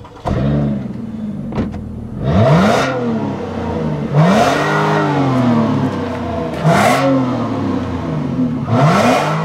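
2013 Mazda CX-9's 3.7-litre V6 heard at the exhaust tailpipe, idling and then revved four times. Each throttle blip rises quickly and falls back to idle, about two seconds apart.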